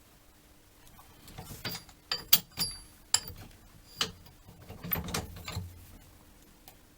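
Wrench working on nuts as they are tightened by hand: a series of sharp metallic clicks and clinks, some ringing briefly, clustered in the middle few seconds.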